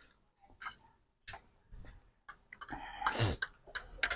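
Metal fork and spoon clicking and scraping on a plate of instant noodles, scattered light taps, with a short sound falling in pitch about three seconds in.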